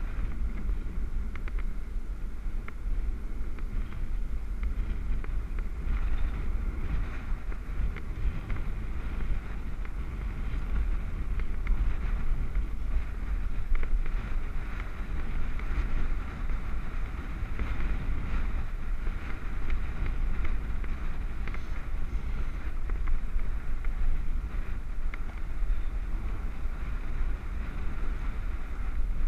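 Wind buffeting the microphone of a helmet-mounted camera on a moving road bike: a steady low rumble with a continuous hiss above it.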